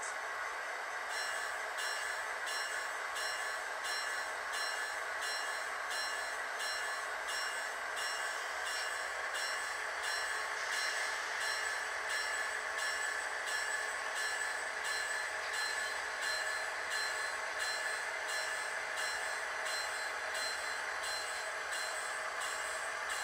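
Model diesel locomotive sound, with the engine running as a steady hiss and hum. From about a second in, a bell rings about twice a second.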